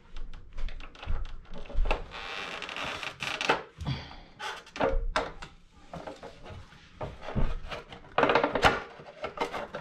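Hands working a push-in plastic clamp free from a motorcycle's front fender and brake line: scattered clicks and knocks of plastic, with two short stretches of scraping and rubbing.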